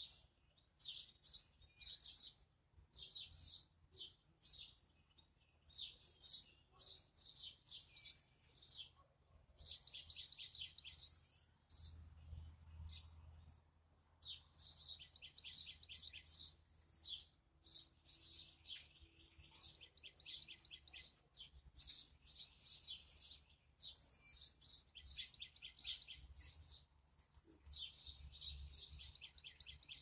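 Songbirds chirping: short, high calls and quick rapid-fire runs that overlap and keep up with only brief pauses, faint in level.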